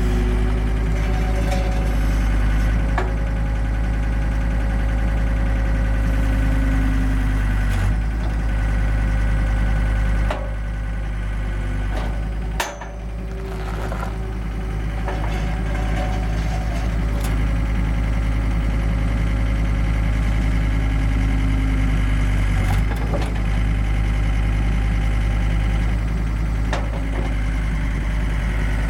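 John Deere skid steer loader's diesel engine running steadily while it works a bale slicer attachment, with steady tones over a deep drone. The level dips briefly about ten seconds in, and there is a sharp click near thirteen seconds.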